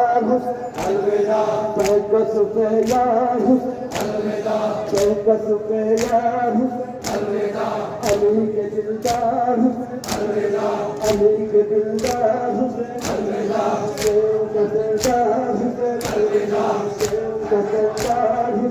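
A crowd of men chanting a Muharram noha lament in unison, with a steady beat of sharp slaps from matam, hands striking bare chests together.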